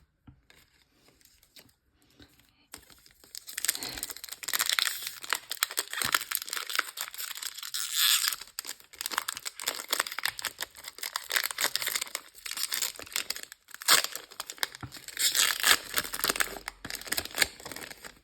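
Foil booster-pack wrapper being torn open and crinkled. It starts about three seconds in and carries on as a dense crackle with louder spells.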